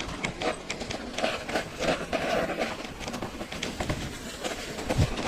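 Mountain bike riding down a trail covered in fallen leaves: tyres rolling and crunching over the leaves, with irregular clicks and knocks of the bike jolting over bumps.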